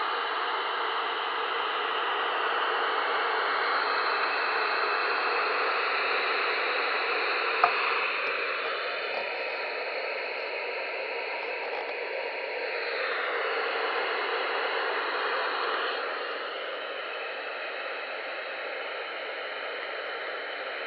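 President Grant CB/10-metre transceiver's receiver hissing with band static through its speaker while no station is being received. The hiss changes in tone a few times, and there is a single sharp click about eight seconds in.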